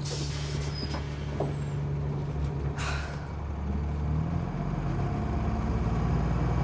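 City bus heard from inside: its engine runs steadily, with two short hisses of air, one at the start and one about three seconds in. About four seconds in, the engine note shifts and rises a little.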